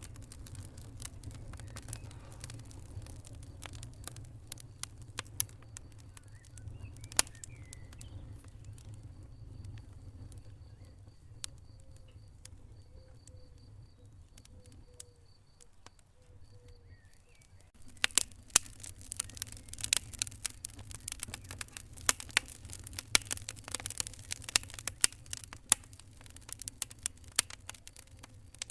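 Wood fire in a fireplace crackling and popping over a low steady rumble; the pops are sparse for a while, then come thick and fast from about two-thirds of the way in.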